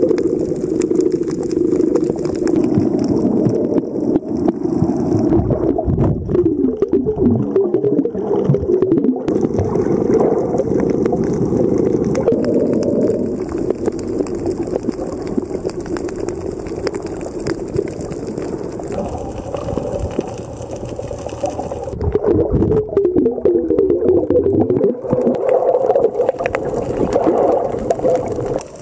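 Muffled underwater sound from a submerged camera: a steady, wavering low rumble with slow gliding tones that rise and fall.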